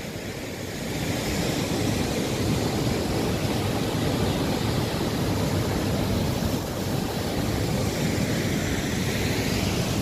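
Steady rushing of a large waterfall and its fast mountain river, with wind buffeting the phone's microphone; it gets a little louder about a second in.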